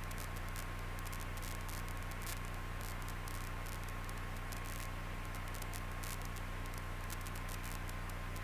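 Steady static-like hiss over a low, even hum in a Luscombe light aircraft's cabin, with the engine pulled back to idle for a simulated engine-out glide. A faint steady tone sits above the hum, and there is no change in the engine's sound.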